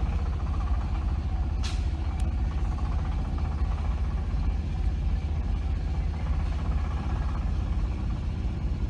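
Road traffic in a queue of vehicles: a steady low engine rumble, with a short hiss about 1.7 seconds in.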